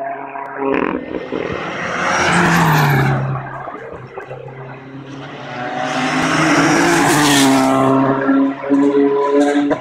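Rally cars passing at speed on a tarmac stage, engines at full throttle: two cars go by, about two seconds in and again about six to seven seconds in, the engine pitch dropping as each passes. A few sharp cracks near the end.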